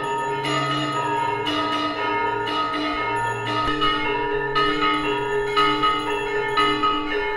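Temple bells ringing for aarti, struck in an even rhythm about once a second, each stroke ringing on into the next.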